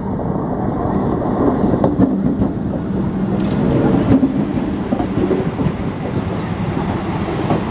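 Electric multiple-unit (EMU) local train rolling past close by as it runs into the platform: a steady rumble with wheels clicking over rail joints, and thin high-pitched wheel squeals, strongest in the second half.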